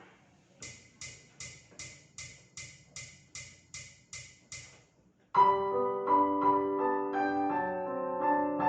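Music: a soft, even ticking beat about two and a half times a second, then about five seconds in a piano comes in much louder, playing held chords and a melody.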